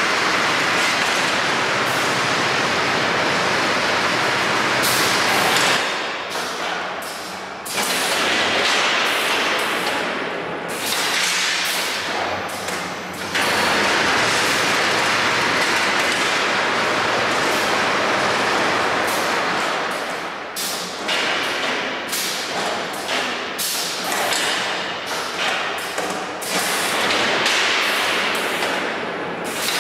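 Eurobend Syntheton automatic rebar bending machine running: long stretches of steady rushing mechanical noise, with dips between them, give way about two-thirds of the way through to a quick run of knocks and clunks as the machine works the steel bars.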